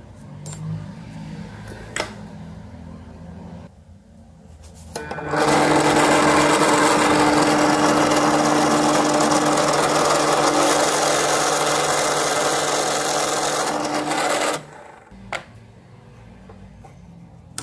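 Small drill press motor starting about five seconds in and running with a steady hum while the bit drills into a brass cylinder, then cutting off about nine seconds later. Before and after it, a few sharp metal clicks from handling the clamp and workpiece.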